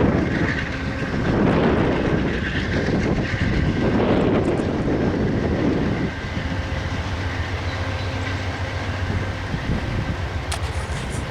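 A train moving on the rails, with heavy wind gusts buffeting the microphone for the first half; after that the sound settles to a steadier, quieter hum.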